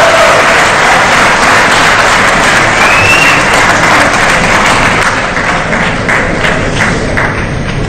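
Large audience applauding. The applause is dense at first, then thins to scattered claps over the last few seconds.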